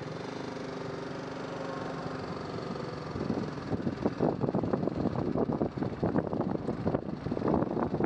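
Motorcycle engine running at low speed as the bike rolls slowly. It hums steadily for about three seconds, then turns rougher and more uneven and gets a little louder.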